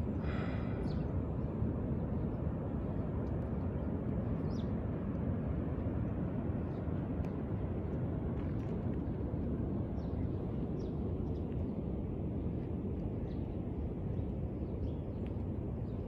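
Steady low rumble of open-air beach ambience, with faint bird chirps scattered through and one short bird call about half a second in.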